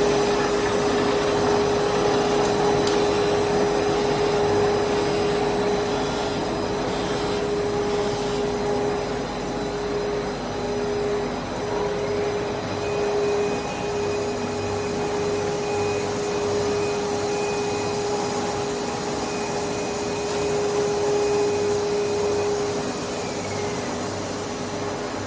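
Stretch film production line machinery running: a continuous blowing hum with a steady mid-pitched whine. A fainter, higher whine joins about halfway through.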